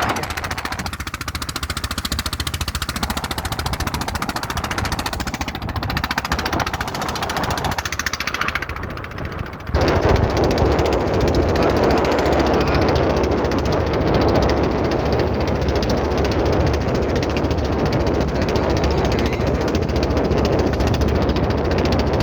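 Small boat's motor running steadily under way, with wind buffeting the microphone; it gets louder about ten seconds in.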